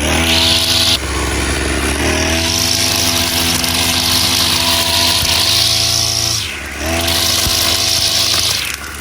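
Two-stroke brush cutter engine with a 45 mm bore and a Walbro carburettor, running at high throttle. Its pitch drops briefly about two-thirds of the way through, then it revs up again, and it dips once more near the end.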